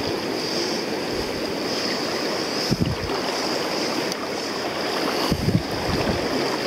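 Steady rushing of a shallow, rocky trout river's riffle flowing past. A few low thumps on the microphone about three and five and a half seconds in.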